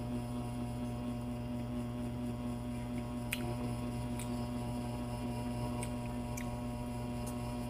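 Steady low electrical hum, with a few faint wet mouth clicks from someone chewing pineapple.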